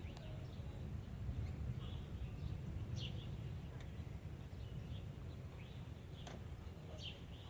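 Birds chirping now and then, about half a dozen short high calls, over a low steady rumble of outdoor noise.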